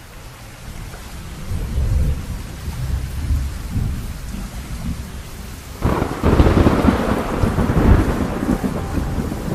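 Rain falling with thunder: a low rumble builds over the first few seconds, then a loud thunderclap breaks about six seconds in and keeps rolling.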